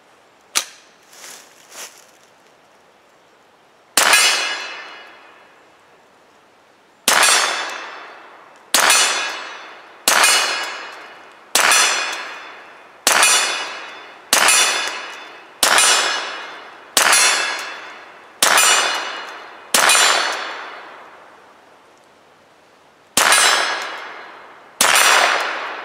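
Mossberg Blaze semi-automatic .22 LR rifle firing thirteen shots at steel targets, each shot followed by a ringing tail lasting a second or more. The shots come about one every second and a half, with a pause before the last two, and a few light clicks come before the first shot.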